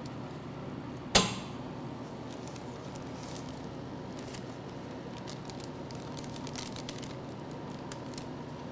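A single sharp click about a second in, then faint crinkling and rustling of parchment paper as it is peeled away from a set piece of printed chocolate.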